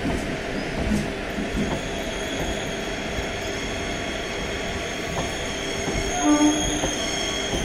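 Suburban electric multiple-unit (EMU) local train rolling slowly along the platform with a steady running noise. A high, thin wheel squeal builds from about five seconds in, and a short hoot sounds about six seconds in.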